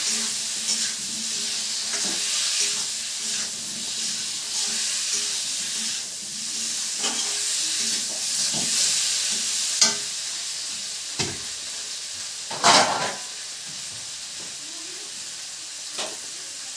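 Potatoes and tomato sizzling in hot oil in a steel kadai, stirred with a metal spatula that scrapes and clicks against the pan. A few sharper knocks stand out, the loudest about thirteen seconds in, and the sizzle is a little quieter in the second half.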